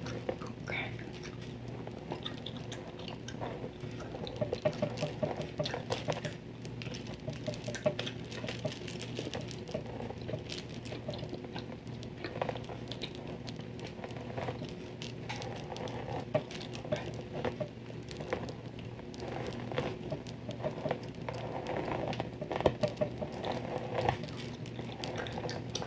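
Bangle bracelets jangling and clinking in irregular small clicks, mixed with the handling of a hair straightener.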